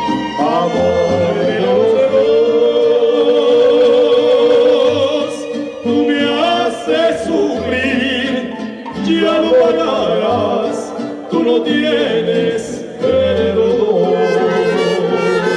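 Mariachi music: a man singing long held notes with strong vibrato over violins and guitars, pausing briefly between phrases.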